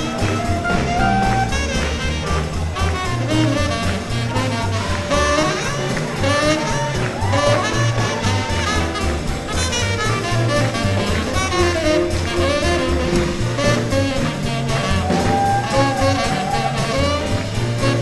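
Small swing jazz band playing live: upright bass notes stepping along under horn melody lines with a steady drum beat.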